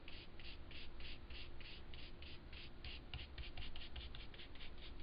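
A stiff, trimmed-bristle chip brush scrubbing nearly dry white acrylic paint onto cardstock along the edge of a paper mask. The short, quick strokes come about six a second.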